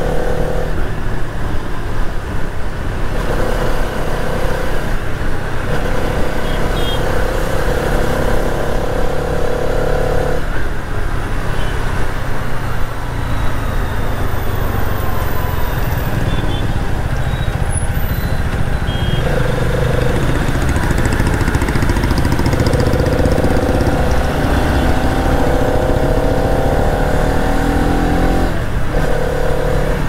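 Hero Karizma XMR 210's single-cylinder, liquid-cooled 210cc engine running under way, over a heavy rush of wind and road noise. The engine note drops out and returns several times, and it rises in pitch as the bike accelerates late on.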